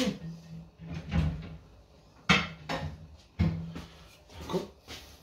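A handful of separate wooden knocks and clunks, about five spread over a few seconds, each with a short low ring after it: kitchen things being handled.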